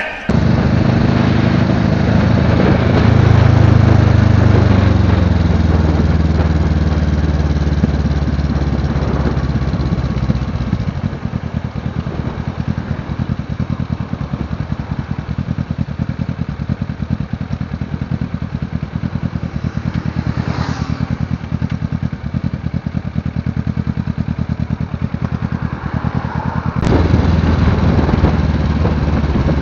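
Motorcycle engine heard on board while riding: the engine note falls over the first several seconds as the throttle comes off, then runs steadily with a fast pulsing exhaust, and rises again with a jump in level near the end as the bike accelerates.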